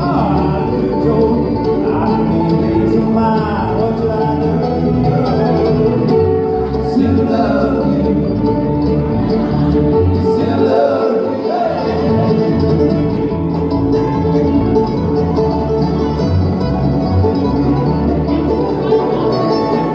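Bluegrass band playing live: banjo, fiddle, mandolin, acoustic guitar and upright bass, with sliding melodic lines over a steady plucked bass.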